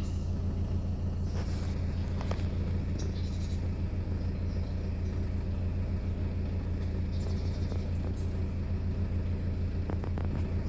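Peugeot 406 2.0 HDi four-cylinder common-rail turbodiesel idling with a low, even drone, and a couple of faint clicks over it. The owner describes this idle as unstable and the engine as making strange noises.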